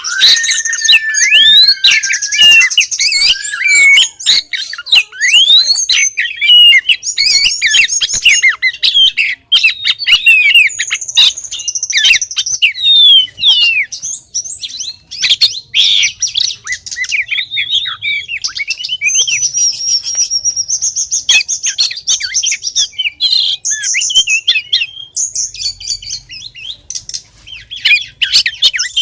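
Female oriental magpie-robin singing a continuous, varied run of whistled notes, rising and falling slurs and rapid buzzy trills. This is the call of a female in breeding condition that draws males, used as a lure sound.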